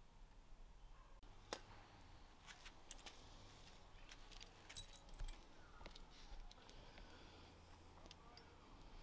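Faint, scattered clicks and light metallic clinks from steel parts being handled: a steel tube with a clamp on its end, with a few sharper clinks about a second and a half, three and five seconds in.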